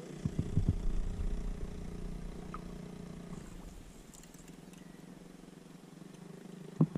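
A steady low hum like a distant motor, fading after about three and a half seconds. Low rumbles and a few knocks come in the first second, and one sharp knock comes near the end.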